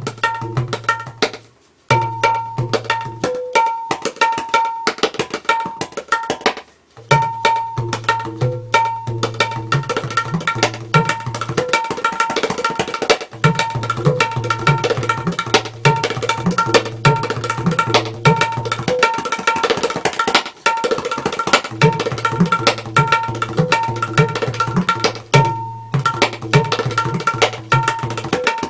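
Tabla solo: rapid strokes on the dayan ring at a steady pitch over the booming, pitch-bending bass strokes of the bayan, playing the opening theme (mukh) of a qaida. There are brief pauses between phrases, about 2 and 7 seconds in.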